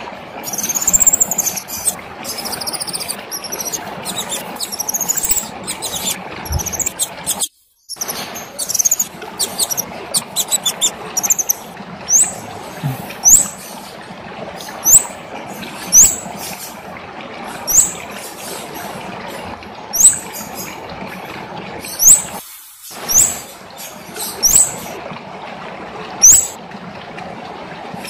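Kemade songbird singing: rapid high-pitched twittering for the first ten seconds or so, then a series of loud, sharp rising whistled notes about one a second, over a steady background hiss.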